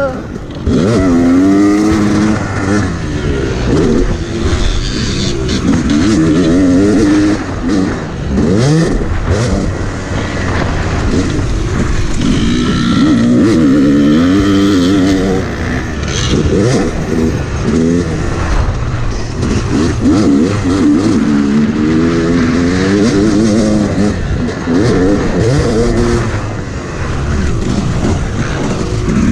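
Dirt bike engine being ridden hard, revving up and easing off over and over as the rider works the throttle around the track.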